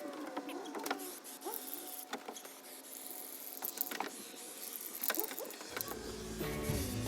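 Scattered light clicks and knocks, with a few short chirping glides in the first second or so; background music comes in about six seconds in.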